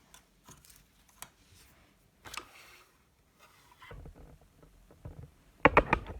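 Scattered light clicks and a brief rustle of small objects being handled, then a quick run of sharper knocks near the end.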